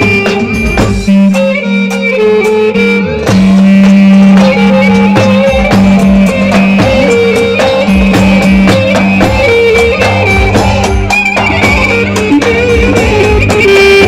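Live Roman havası dance music: a clarinet playing a bending melody over the beat of a davul bass drum and a backing band.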